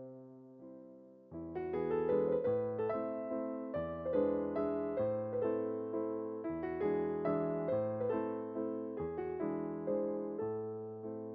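Background music: a gentle solo piano piece, a few soft notes at first, then fuller chords struck about twice a second from just over a second in.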